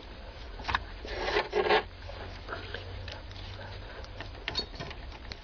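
Light scrapes and small clicks of a thin wire being worked into the release hole in the side of a Saturn's ignition lock cylinder, with a longer scrape about a second in. A steady low hum runs underneath.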